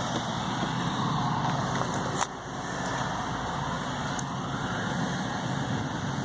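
Steady motor-vehicle rumble, with a single click about two seconds in.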